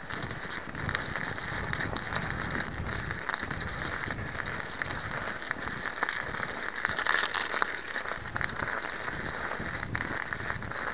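Packed snow crunching and crackling steadily under bicycle tyres, with low wind rumble on the microphone and a louder stretch of crackling about seven seconds in.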